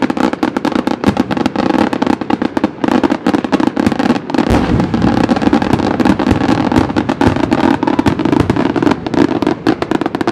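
Fireworks firing beneath a large hot-air balloon: a dense, rapid string of small firecracker bangs crackling without a break over a steady rushing noise. The fireworks are blowing the balloon apart.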